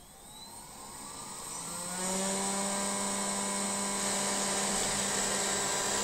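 Xiaomi Roborock robot vacuum's suction motor spinning up with a rising whine over about two seconds, then running steadily with a high-pitched hiss as the robot sets off from its dock.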